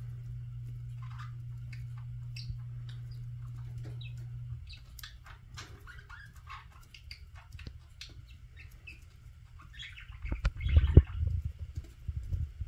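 Budgie chirps and short clicks as a budgerigar pecks at leafy greens. A low steady hum stops about four and a half seconds in. Near the end comes a louder bout of thumps and rustling.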